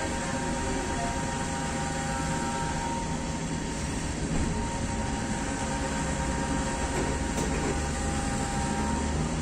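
Fuel-station dispenser pump running during filling: a steady mechanical hum with a thin whine on top, the whine stopping near the end.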